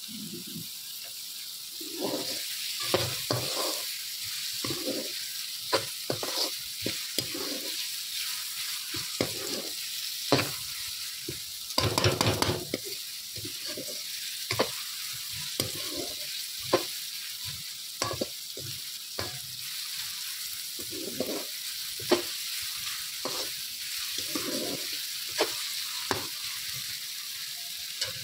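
Chopped onion and garlic sizzling in hot oil in a karahi while a slotted steel spatula stirs and scrapes the pan: a steady sizzle with repeated short scrapes and clinks, densest about twelve seconds in. The onion is being fried until transparent.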